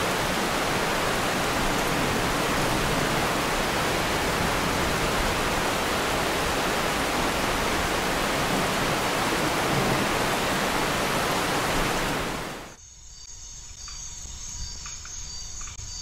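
Heavy rain falling on rainforest foliage: a steady, loud hiss that cuts off suddenly about twelve and a half seconds in. It gives way to quieter forest, with insects trilling in steady high tones.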